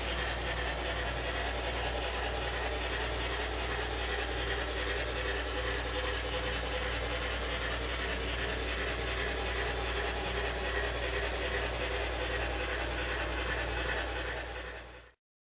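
Steady train running noise with a constant low hum underneath, fading out over the last second or so.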